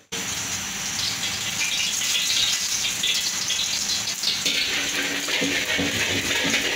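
Hot oil sizzling and hissing steadily in a steel wok over a gas burner as a ladle stirs it.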